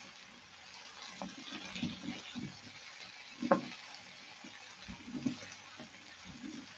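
Silicone spatula stirring and turning julienned chayote in a pan, soft scrapes and shuffles with a faint sizzle. One louder knock about three and a half seconds in.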